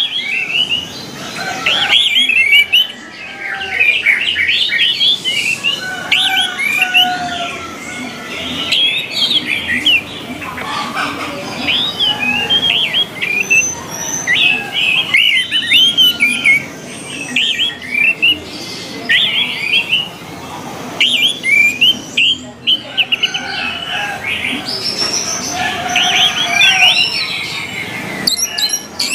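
Orange-headed thrush singing: a long, almost unbroken run of quick, varied chirps and rising and falling whistled notes, with only short breaks.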